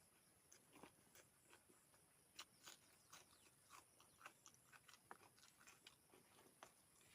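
Faint close-up chewing and crunching of food: a run of short, sharp crunches and mouth clicks, a few each second.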